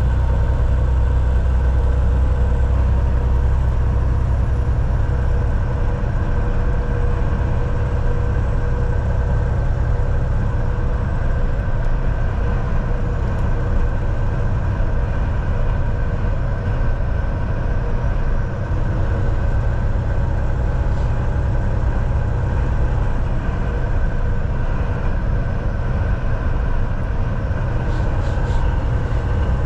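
Semi truck driving: a steady engine drone and road rumble, with a few steady tones running through it.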